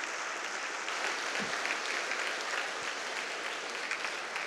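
Audience applauding: a steady stream of many hands clapping.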